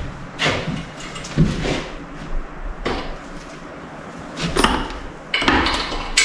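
Metal parts of a Powerglide automatic transmission being handled during teardown: several separate clunks and scrapes, with a busier run of knocks near the end.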